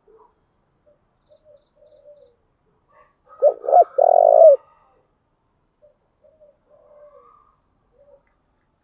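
Spotted dove cooing. Soft low coos come first. About three and a half seconds in, a loud call of two short notes and a longer third note follows, then soft coos again.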